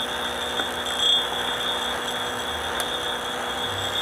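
Steady hum of running electrical machinery, with a constant thin high whine over it: the welding machine and its power supply switched on and idling, not yet welding.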